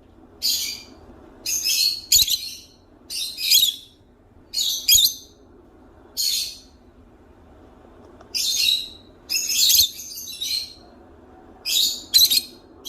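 Parrot calling: a string of short, high-pitched calls, roughly one a second with uneven gaps, several coming in quick pairs.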